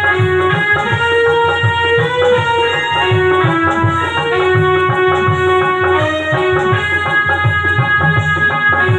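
Instrumental interlude of an old Hindi film song: a sustained melody on keyboard and benju (Indian banjo) over a steady naal drum rhythm, with no singing.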